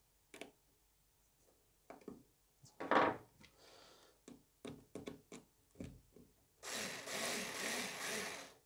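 Small cordless screwdriver running for about two seconds near the end, driving a screw into the plastic dust-boot mount. Before it, tools and parts click and knock on a wooden worktable as a hex key is put down and the screwdriver picked up.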